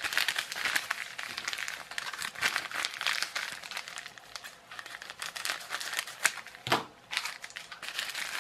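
Crinkling of a thin postal packet being handled and cut open with scissors, with one sharp click about two-thirds of the way through.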